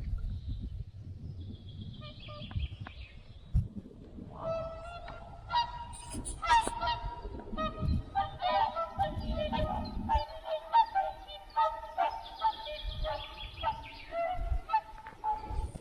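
A flock of geese honking, many short overlapping calls in rapid succession starting about four seconds in, over a low rumble.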